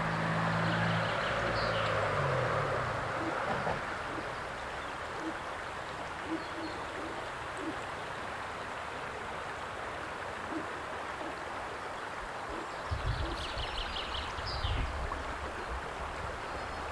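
Steady rushing of a river flowing past, with a low hum in the first few seconds and a few low rumbles about thirteen to fifteen seconds in.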